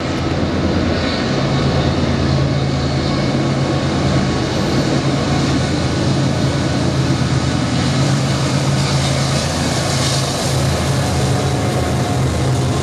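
Diesel locomotives at the head of a BNSF double-stack freight train approaching and passing, a loud steady low engine drone with a strong hum that sets in about a second in.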